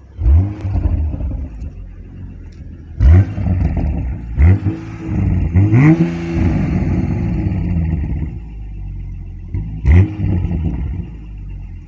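2020 Toyota Supra's turbocharged 3.0-litre BMW B58 inline-six, heard at the factory exhaust in normal mode, blipped five times from idle. Each rev rises sharply and falls back to a steady idle, the last near the end.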